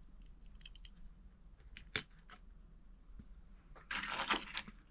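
Diecast model cars and their plastic packaging being handled: light clicks, a sharp tap about two seconds in, then a short clatter and rustle near the end.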